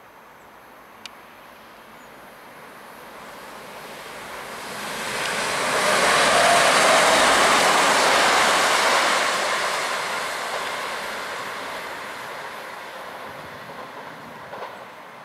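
A First TransPennine Express Class 185 diesel multiple unit passing. Its noise grows as it approaches, is loudest about six to nine seconds in, then slowly fades as it goes away.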